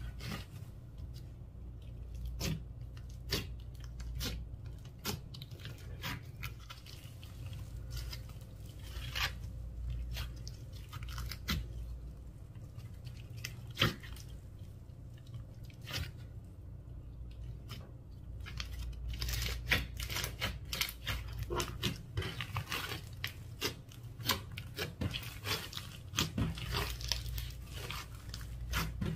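Slime mixed with mini balls being kneaded and stretched by hand, giving irregular sticky crackles and crunchy clicks, busier in the last third.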